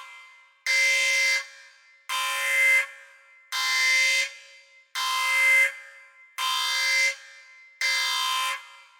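Spaceship alarm sound effect: a buzzy, steady-pitched alarm blast repeating about every second and a half, six times. Each blast starts suddenly, holds for under a second, then fades away with an echo.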